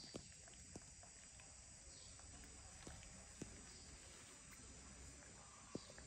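Near silence: a faint steady high-pitched hiss or buzz, with a few soft, sharp clicks scattered through.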